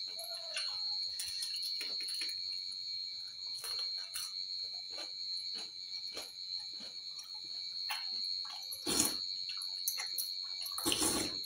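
A spoon clicking and scraping in a steel bowl of sambar amid scattered small eating clicks, over a steady high-pitched tone. Two louder, noisier bursts come near the end.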